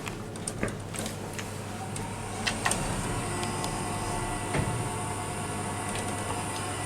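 Otis Gen 2 machine-room-less lift: a few clicks and knocks, then from about three seconds in a steady whine as the car travels.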